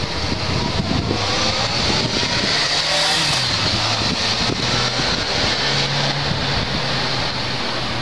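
Motorcycle engine revving up as the bike pulls away, its pitch rising over the first few seconds and then running steadier, with wind buffeting the microphone.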